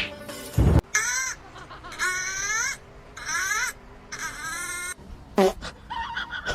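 A loud thud, then four drawn-out wailing cries, each arching up and down in pitch, with a sharp click near the end.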